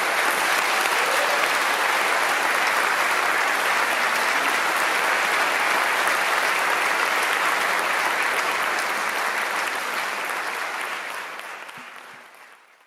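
Theatre audience applauding at the end of a song, a dense steady clapping that fades away near the end.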